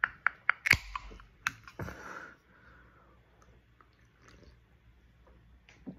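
Quick, regular taps on an aluminium drink can, about four a second, then the can's pull tab cracks open about a second in, followed by a short fizz. After that come faint sips and swallows as the drink is drunk from the can.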